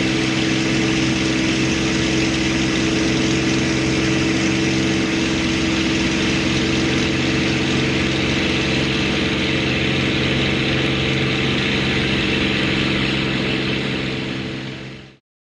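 Spitfire's V12 piston engine heard from aboard the aircraft, a steady drone at constant pitch with rushing airflow over it. It fades out and stops near the end.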